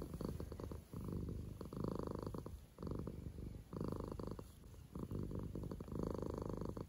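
Domestic cat purring steadily, the purr swelling and fading about once a second with each breath in and out.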